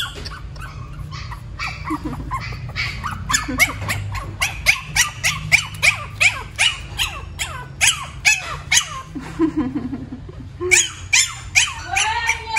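Pomeranian puppy yipping and whining in quick high squeals, several a second, each falling in pitch: a run that sounds like a motorbike revving, "ngeng ngeeeng". After a short pause about ten seconds in, the squeals start again and end in a longer whine.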